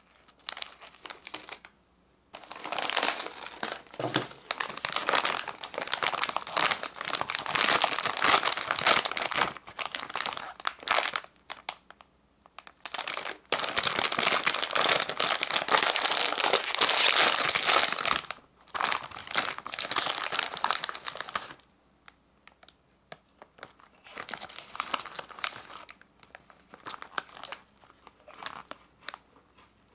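Crinkly plastic and foil snack packets being handled and torn open, the loudest part being the shiny metallized takoyaki-snack bag. The crinkling comes in long stretches with short pauses, then turns to lighter, sparser rustling over the last several seconds.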